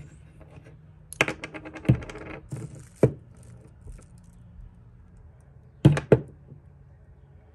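Small hard parts being handled on a bench: scattered clicks and taps, then two sharp knocks close together about six seconds in.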